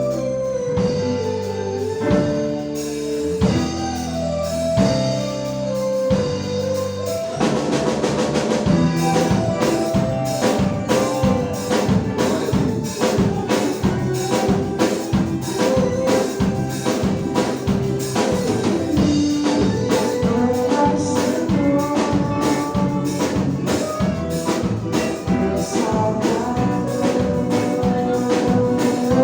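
A band playing instrumental music. Held chords open it, and about seven seconds in the drum kit comes in with a steady beat under the melody.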